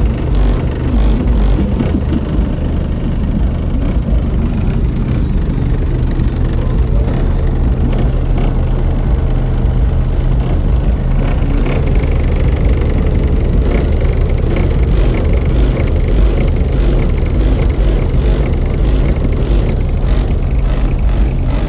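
Two Fi BTL N3 18-inch subwoofers on 8,000 watts playing bass-heavy rap music at very high volume, dominated by a deep, steady bass. A regular beat shows more plainly from about midway on.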